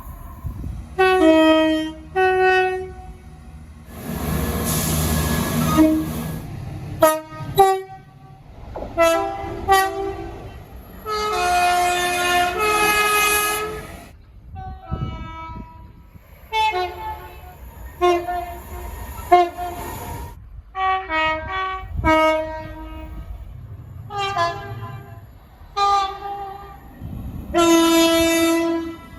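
Train horns sounding a long string of blasts, mostly short toots with several longer held chords of more than one note. About four seconds in, one long blast rides over the rushing noise of a passing train.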